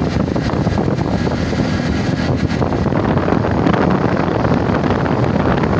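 Heavy, steady wind buffeting on the phone's microphone while riding a TVS XL100 moped along the road, with the moped's running and road noise beneath it.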